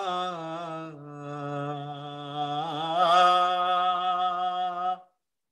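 A man's unaccompanied voice holding one long sung note of an Urdu marsiya (elegy), the pitch stepping down about a second in and wavering briefly near the middle. The note breaks off abruptly about five seconds in.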